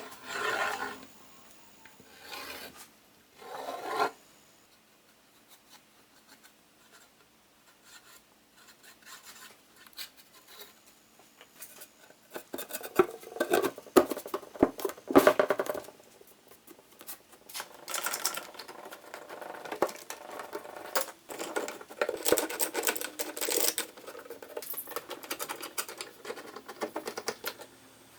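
Hand work on wood: irregular rubbing and scraping strokes. A few separate strokes come in the first four seconds, then it is nearly quiet for a while, then denser, uneven scraping starts about halfway through.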